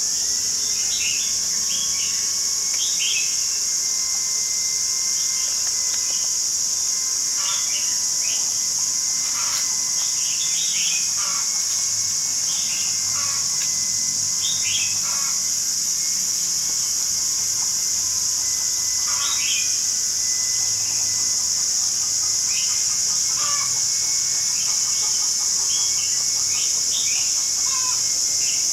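Outdoor garden chorus: a steady high insect drone throughout, with short bird chirps and calls scattered every second or two over it.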